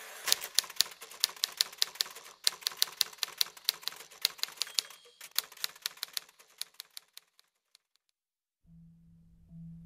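Typewriter keys clacking in quick runs, with short breaks about two and a half and five seconds in, stopping at about seven and a half seconds. A low steady tone comes in near the end.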